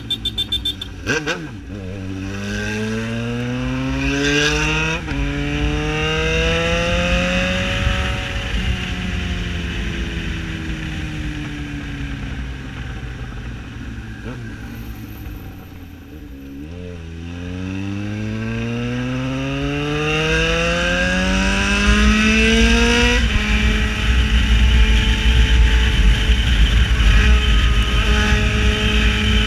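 Yamaha XJ6 motorcycle's inline-four engine running loud under a rider, revving up through the gears with a drop in pitch at a shift about five seconds in. The revs then fall away slowly for several seconds as it slows, climb again, and settle to a steady cruise in the last few seconds. A few sharp pops come right at the start.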